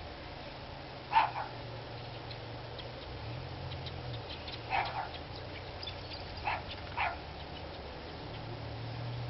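Dog barking in short pairs: three double barks, the first pair about a second in being the loudest.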